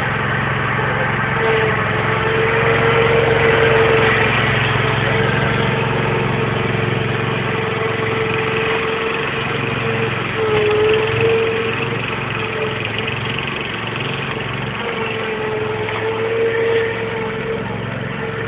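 Lawn mower engine running steadily, its pitch wavering slightly with a brief dip about halfway through.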